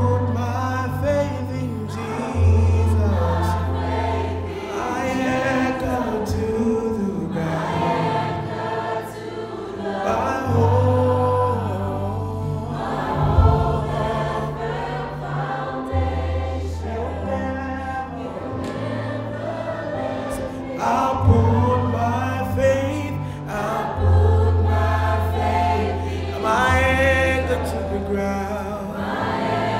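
Gospel worship song: a male lead vocalist sings with a choir behind him, over held low bass notes that change every couple of seconds.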